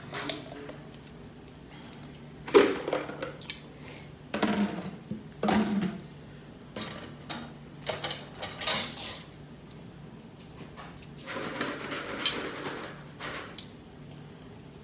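Cutlery clinking and scraping against a glass plate during a meal, in a handful of separate strokes. The loudest comes about two and a half seconds in, and a longer scrape comes near the end.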